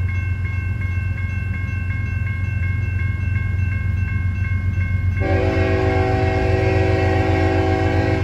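Railroad crossing bell dinging steadily, about three strikes a second, over a low rumble. About five seconds in, an approaching CSX locomotive's horn starts one long blast, several notes sounding together as a chord, over the bell.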